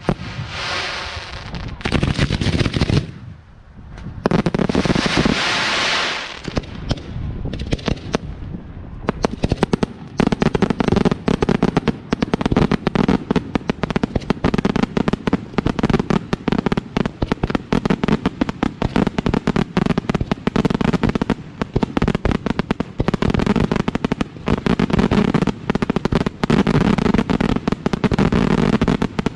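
Fireworks fired at close range from ground racks of mortar tubes in a finale barrage: a few separate bursts at first, then from about nine seconds in a dense, continuous rapid-fire of bangs and crackles.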